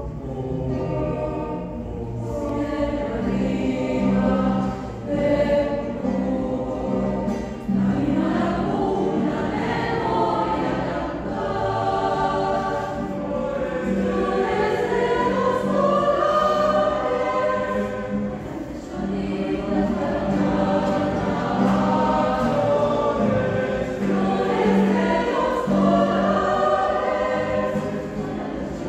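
Mixed choir of men's and women's voices singing a zamba, an Argentine folk song, in several parts with acoustic guitar accompaniment, in a reverberant church.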